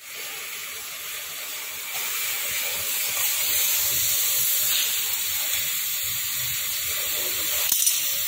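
Steady high hiss, with faint clinks and knocks as loosened bolts are taken out of an aluminium gearbox casing by hand. A sharp click comes near the end.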